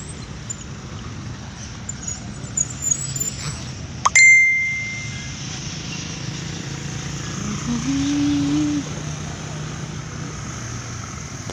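A small bell struck once about four seconds in, a sharp click and then a clear ring that fades over a second or so, over a steady hum of distant traffic. Near the eight-second mark a short low tone steps up in pitch and holds for about a second.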